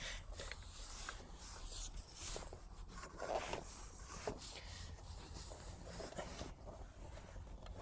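Faint rubbing and rustling of a rubber inner tube being worked by hand into a tire, with a few soft taps, over a low steady hum.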